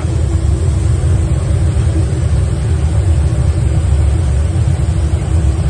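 Oil-fired boiler burners of a 1912 paddle steamer running in the boiler room, a loud steady low rumble with a faint steady hum above it.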